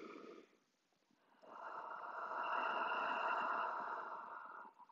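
A deep yogic breath: a short, faint inhale through the nose, then, about a second and a half in, a long audible exhale through the mouth lasting about three seconds, a releasing sigh.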